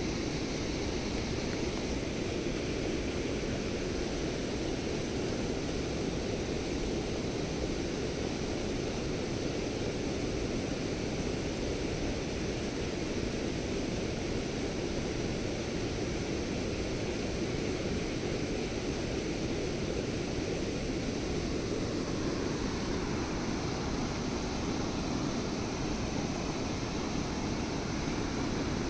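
Steady, even rushing outdoor noise with no distinct events.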